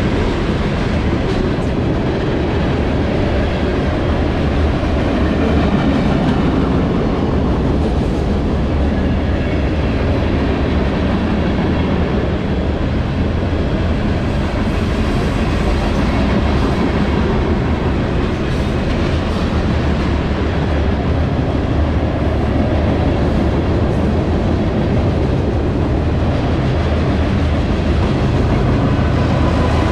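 Freight train passing close by: hopper and tank cars rolling on steel wheels over the rails, a steady, continuous rumble and rattle. Near the end a low drone builds as diesel locomotives placed mid-train approach.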